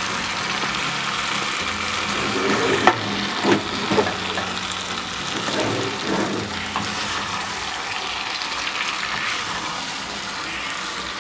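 Meat and sliced peppers sizzling in a nonstick frying pan as a wooden spatula stirs them, with a few knocks of the spatula against the pan about three to four seconds in.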